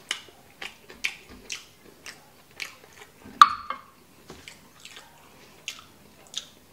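Close-miked chewing of a mouthful of kimchi fried rice with the lips closed, wet mouth clicks coming about twice a second. About three and a half seconds in, a sharp clink with a short ring as the wooden spoon is set down in the metal frying pan.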